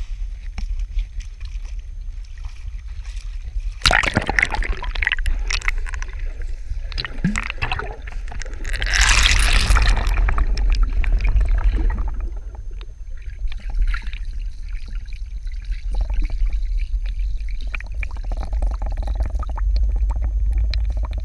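Muffled underwater sound picked up by a GoPro in its waterproof housing, dunked in a shallow river. A steady low rumble runs under a sharp splash about four seconds in and a longer rush of splashing and bubbles around nine to ten seconds in.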